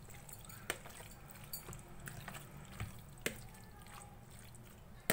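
Spoon scooping creamy macaroni fruit salad out of a bowl into a serving dish: faint wet squelching with a few light clicks of the spoon against the dishes.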